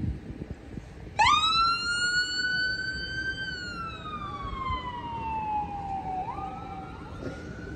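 Emergency vehicle's electronic wail siren: it starts about a second in with a quick rise, climbs a little more, then slides slowly down in pitch and jumps back up near the end.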